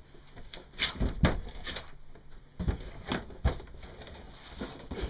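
Irregular knocks and clunks, about seven spread unevenly, from the propeller shaft and gear being handled at the boat's side. A brief high chirp sounds near the end.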